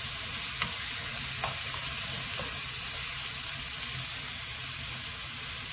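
Oil sizzling steadily in a nonstick frying pan as chunks of Korean round squash are stir-fried with garlic, with a few light ticks of a spatula against the pan in the first half.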